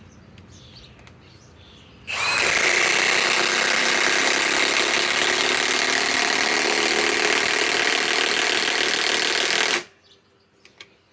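Milwaukee M18 Fuel high-torque impact wrench hammering in a 6-inch lag screw. It starts about two seconds in, runs steadily for about eight seconds and stops abruptly.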